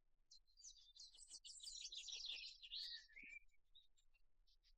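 Faint twittering of small birds: a run of quick high chirps lasting about three seconds, with more chirping starting near the end.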